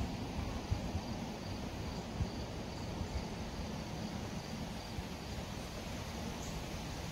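Woodland ambience: faint insect chirps repeating evenly over a steady low background rumble.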